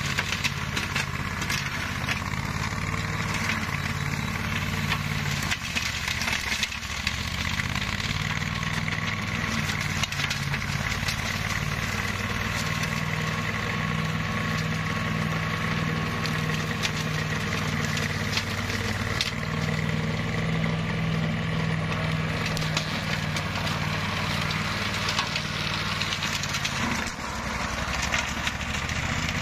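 Engine of a flail (hammer-shaft) grass cutter running steadily, with a dense spatter of small clicks and knocks over the engine note; the note dips briefly near the end.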